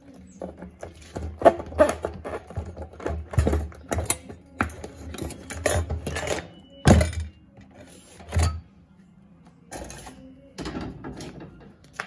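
Metal knocking and clattering from a washing machine's transmission and its steel bracket being worked loose with a screwdriver and lifted off the plastic tub base: a run of irregular knocks, the loudest in the first two-thirds and lighter handling near the end.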